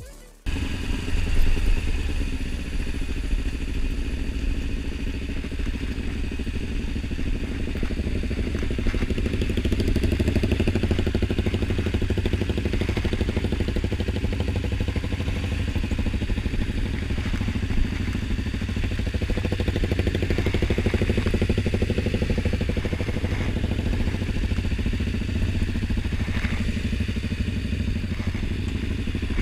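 Kawasaki Ninja 250 motorcycle engine running steadily at low revs, heard from the rider's seat.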